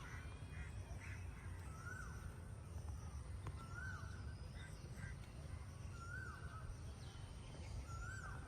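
A crow cawing over and over, one call about every two seconds, each rising, holding and dropping in pitch, over a steady low outdoor rumble.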